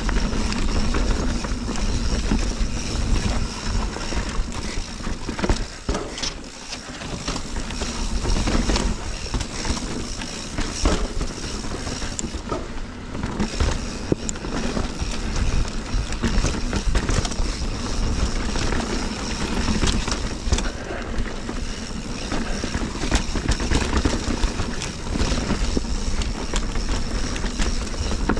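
Mountain bike ridden over rocky singletrack, heard on an action camera: wind rumbling on the microphone and tyres rolling on dirt and rock, with frequent sharp knocks and rattles from the bike over bumps. It eases briefly about six seconds in.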